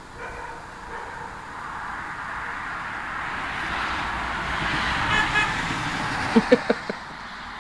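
A car passes on the road, its tyre and engine noise swelling and fading, and its horn gives a few quick short toots near the end.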